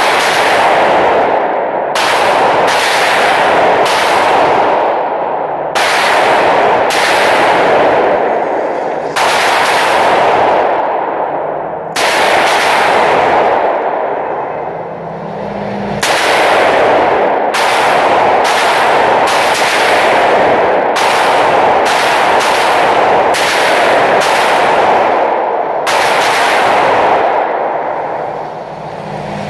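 Loud gunshots at an indoor range, among them shots from a Smith & Wesson .44 Magnum revolver. There are about twenty sharp cracks in irregular groups, each with a short ringing echo, over a steady loud rumble.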